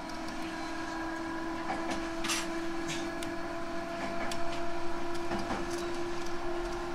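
Running sound inside a JR 311 series electric multiple unit: a steady hum with a held tone, scattered rattles and clicks, growing louder toward the end.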